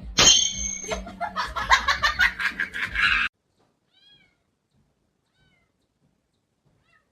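A cat meowing and yowling over and over for about three seconds, then cutting off suddenly, followed by one faint short mew about a second later.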